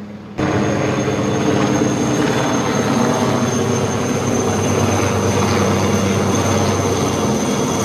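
Helicopter flying overhead, a loud steady rotor-and-engine noise with a thin high whine running through it, starting abruptly about half a second in.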